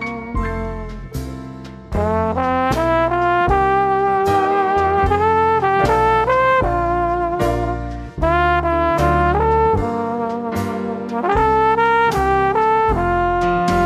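Upbeat outro music: a brass-led melody over a drum beat and bass line, dipping briefly about eight seconds in.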